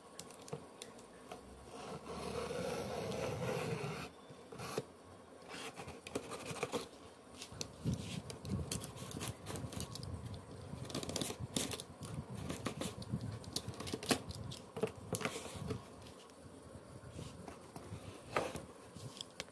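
Box cutter slitting packing tape and scraping along a cardboard shipping box: a continuous rasp about two seconds in, then irregular scrapes, scratches and sharp clicks of blade and cardboard as the box is worked open.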